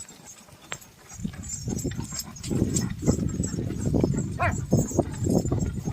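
A pair of Khilari bulls on the move, their hooves thudding rapidly on the ground; this starts about a second in and keeps up, with a brief high call near the middle.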